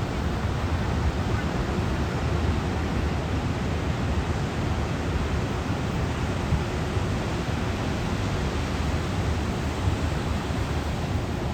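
Steady rushing noise of wind and ocean surf at the shore, heaviest in the low end, with no clear bird calls standing out.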